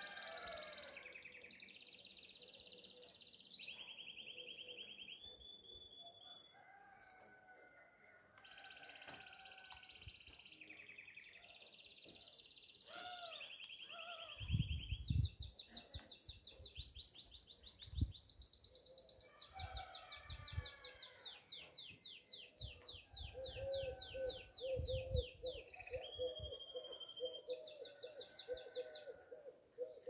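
A canary singing a continuous song of trills and rolls, each run held a second or two at a new pitch, some as fast repeated notes. A few low thumps come about halfway through, and a low pulsing note runs beneath the song near the end.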